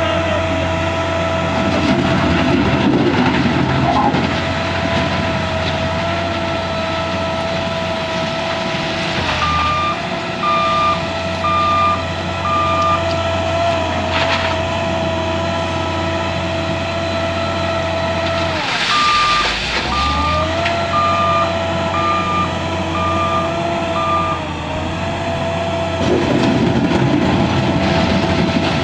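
L&T 9020 wheel loader's diesel engine running under load, its pitch dropping and climbing again twice as it shifts and reverses. Its reversing alarm beeps in two runs, about four beeps a third of the way in and about six more in the second half.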